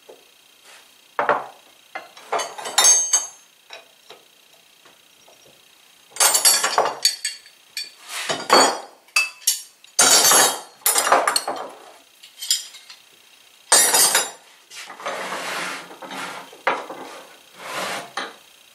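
Metal hand tools and steel rods clanking and clattering as they are picked up, handled and set down on a workbench: a string of irregular clanks and scrapes, some with a short metallic ring.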